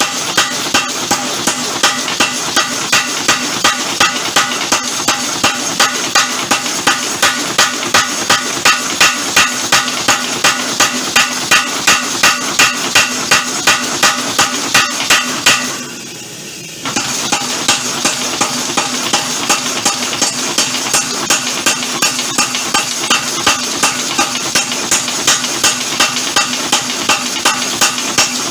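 Homemade mechanical power hammer striking steel in a fast, even run of ringing blows, about three a second. The blows break off for about a second midway, then resume at the same pace.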